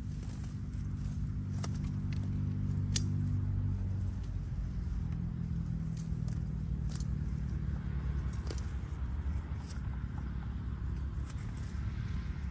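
A low, steady engine hum whose pitch shifts about four seconds in, with scattered clicks and crackles of plastic litter being handled.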